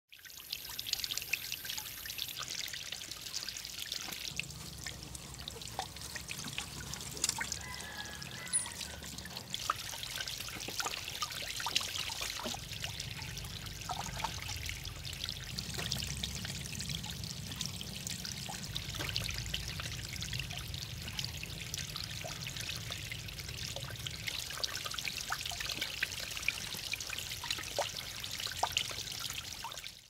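Water trickling steadily over the rocks of a small handmade waterfall into its pond, with many small splashes.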